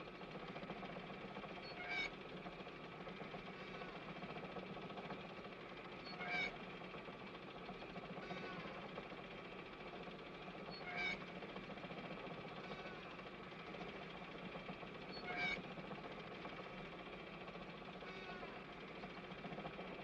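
Mechanical Santa Claus window-display figure running with a steady hum, its moving arm giving a short, falling squeak about every four and a half seconds, four times.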